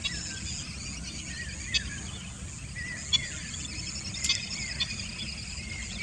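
Marsh ambience: steady high-pitched insect chirring over a low rumble, with short, sharp bird calls every second or so, several of them sliding downward in pitch. The sharpest call comes about four seconds in.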